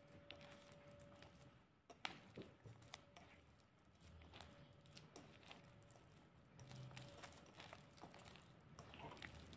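Faint, soft sticky sounds of oiled hands folding wet no-knead focaccia dough in a glass bowl, with a few small clicks, the sharpest about two seconds in.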